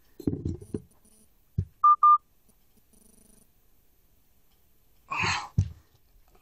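Handling noise and a knock, then two short, very loud beeps about two seconds in. A little after five seconds comes a sharp breathy huff as the burn of the hot pepper in the mouth hits.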